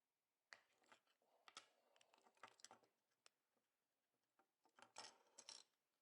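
Faint clicks and scraping of small plastic parts being handled, in two bursts with a short pause between, as the remote key fob is worked on by hand.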